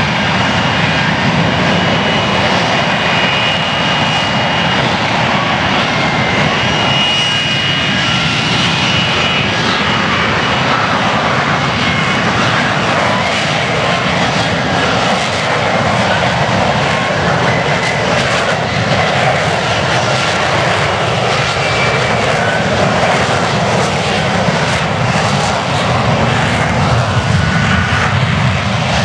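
F-35B's F135 jet engine and shaft-driven lift fan running at hover power as the jet hovers in short-takeoff/vertical-landing mode, a loud, steady jet noise. A faint high whine sits on top of it during the first ten seconds or so.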